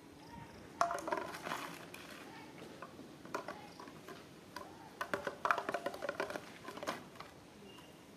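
Plastic bottle clattering and scraping on concrete as a baby monkey handles it: a quick run of knocks about a second in, and a longer, louder run from about five to seven seconds in.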